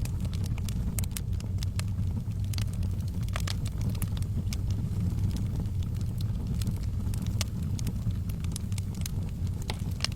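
Wood fire crackling in a fireplace: irregular sharp snaps and pops over a steady low rumble of the burning.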